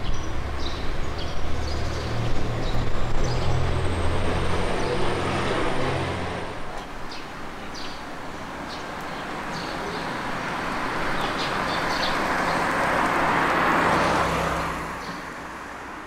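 Road traffic: a motor vehicle passes with a low engine hum and tyre noise over the first several seconds, then a second vehicle's noise builds to a peak near the end and fades away.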